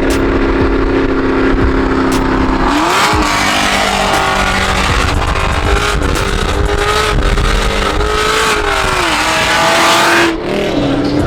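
Car engine and exhaust under way: a steady drone, then the pitch climbs about two and a half seconds in as it accelerates, holds with small rises and falls, and drops again near the end, over road and wind noise.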